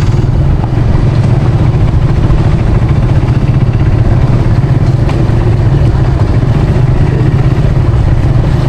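Motorcycle engine running steadily while riding along a dirt road, a loud continuous low rumble.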